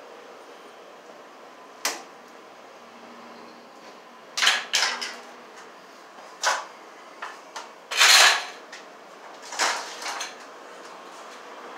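Irregular knocks, clatters and scrapes from handling electrical cable and moving about during wiring work, the longest a half-second scraping rush about eight seconds in, over a steady low hiss.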